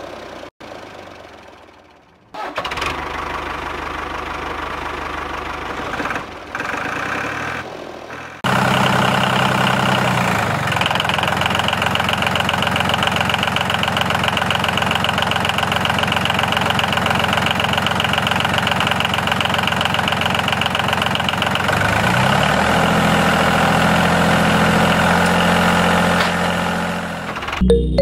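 Tractor engine running at a steady idle, quieter for the first several seconds, then louder and even, with a shift in pitch near the end.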